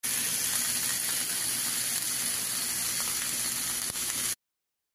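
Whole chicken sizzling in hot oil in a frying pan, a steady frying hiss that cuts off suddenly a little after four seconds in.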